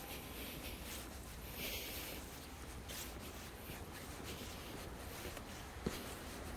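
Faint footsteps of a person walking on paving, mixed with the rubbing of a hand-held phone, over a low background rumble. There is a single sharp click near the end.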